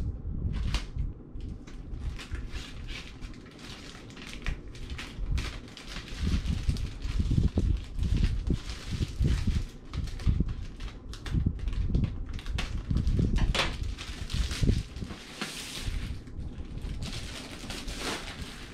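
Clear plastic wrapping being torn and peeled off a cardboard collectible-figure box: irregular crinkling and rustling throughout, with dull bumps as the box is handled.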